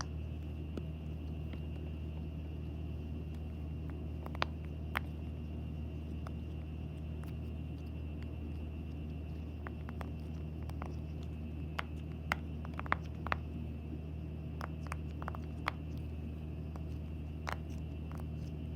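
Silicone Pop-It fidget toy bubbles being pressed, giving short sharp pops at irregular intervals: two about four and five seconds in, then a quicker run of them in the second half. A steady low hum runs underneath.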